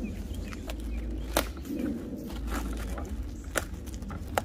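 Plastic packaging and bubble wrap being handled and cut: rustling and crinkling with a few sharp clicks, about a second in, near three and a half seconds, and at the end.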